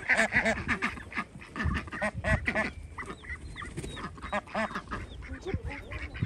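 Domestic ducks quacking over and over in short, overlapping calls, thickest in the first couple of seconds and sparser after, with a few faint high peeps in the middle.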